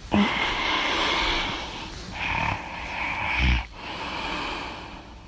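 A sleeping woman breathing noisily between snores: a long rasping breath, a second one about two seconds in that ends in a brief low snort, then a fainter breath.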